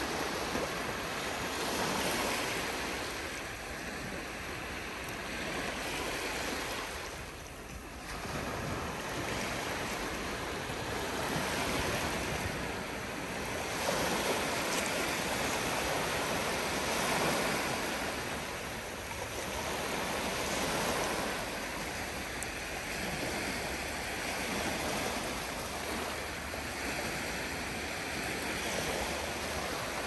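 Surf of a calm Black Sea washing onto the shore in a steady rush, each wave swelling and easing every few seconds.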